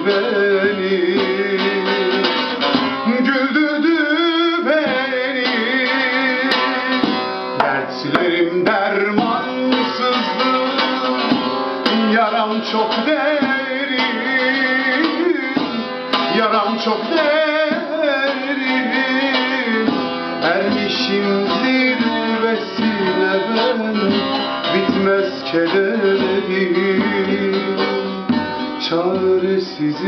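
A man singing with wavering, ornamented vocal lines, accompanying himself on a bağlama (long-necked Turkish saz) whose strings are strummed and plucked.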